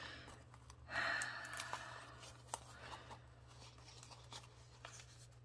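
Quiet handling noise of rub-on transfer sheets on clear film: a soft rustle and a short breathy rush about a second in, then scattered light ticks as the sheets are fanned out in the hands.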